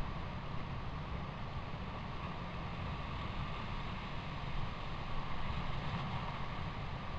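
Steady hiss with a low rumble underneath, the background noise of a trail camera's microphone, with no calls or other distinct sounds.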